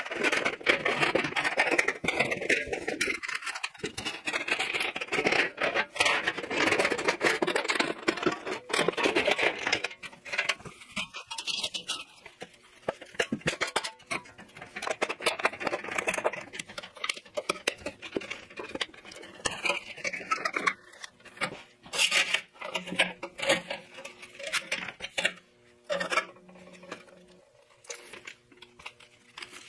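Aviation tin snips cutting thin galvanized steel duct pipe, a rapid run of crunching snips, then the thin sheet-metal pipe pieces clanking and rattling as they are pulled apart and handled. The sounds thin out to a few knocks near the end.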